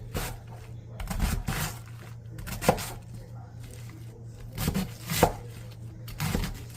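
Cabbage being chopped with a knife on a cutting board: sharp knocks of the blade striking the board at uneven intervals, some in quick clusters, over a steady low hum.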